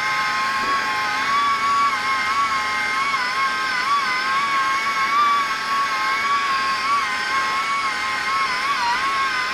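Pneumatic straight die grinder spinning a buffing wheel against a motorcycle engine case: a steady high whine whose pitch dips and wavers as the wheel is pressed into the metal.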